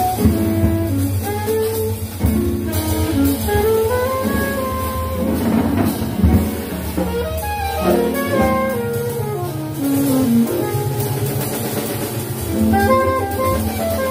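Small jazz band playing live: a saxophone carries the lead line in quick runs that climb and fall, over walking upright bass, piano and drum kit with cymbals.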